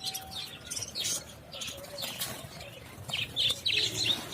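A flock of budgerigars chirping and chattering in quick, high calls, busiest near the end.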